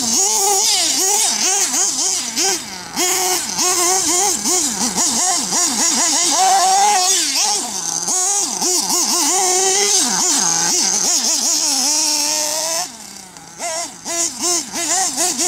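Small nitro engine of a RedCat Hurricane XTR 4WD RC buggy, revved up and down in quick, constant swings as the throttle is worked. It drops back briefly about thirteen seconds in, then picks up again.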